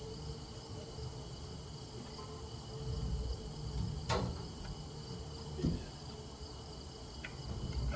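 Steady insect chorus, with a single sharp knock about four seconds in and a duller thump shortly before six seconds.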